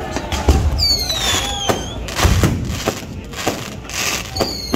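Fireworks going off: a quick string of sharp bangs and crackles, with two deep booms about two seconds apart. Two high whistles fall in pitch over about a second each, one near the start and one near the end, typical of whistling rockets.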